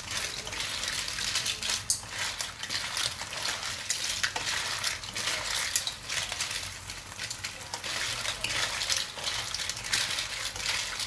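Clams in their shells being stirred in a wok of hot cooking liquid with a wooden spatula: a steady hiss with many sharp clicks as the shells clatter against each other and the pan.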